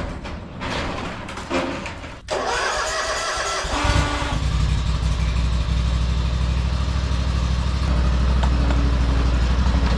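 An engine starts about four seconds in and then runs at a steady idle.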